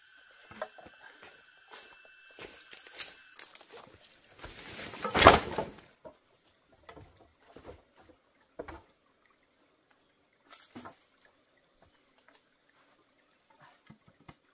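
Knocks and clatter of cut bamboo poles being handled, with a loud rushing crash about five seconds in, then sparse light taps and rustles in leaf litter. A steady high whine sounds for the first three seconds or so.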